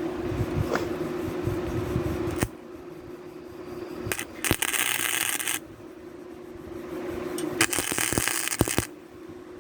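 Gasless flux-core wire welder striking short arcs, two bursts of crackling arc about a second long each, halfway through and near the end, used to burn paint off the steel before welding. A steady hum runs through the first couple of seconds.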